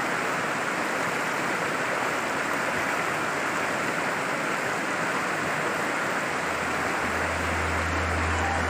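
Fast, shallow river rushing over rocks: a steady, even rush of whitewater. A low steady hum comes in near the end.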